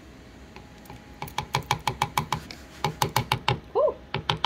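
Plastic measuring spoon tapping against the rim of a glass jar and a plastic cup to knock minced garlic off it: quick runs of sharp clicks, about six a second, with a short pause in the middle.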